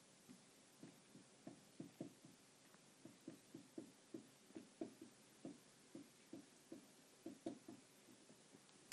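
Faint marker strokes on a whiteboard as letters are written by hand: a string of short, soft scrapes, about two or three a second.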